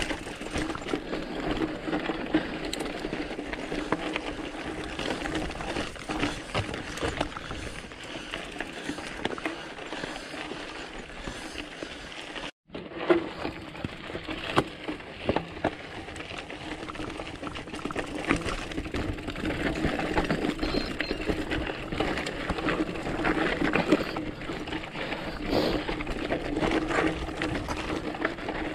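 Trek mountain bike rattling over rocky singletrack: tyres crunching on loose rock and gravel, the frame and drivetrain clattering continuously, with sharp knocks at a few bigger bumps.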